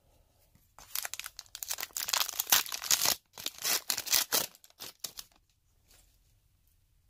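A hockey card pack's wrapper being torn open and crinkled: a run of crackling rustles lasting about four and a half seconds, starting about a second in and stopping suddenly.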